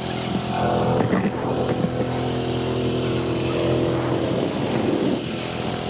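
An engine running steadily, its hum shifting pitch about halfway through, over a noisy rush.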